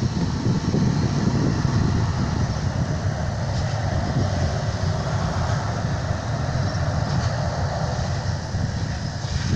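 Jet engines of a Boeing 737-700 at takeoff, a steady low rumble that holds level throughout.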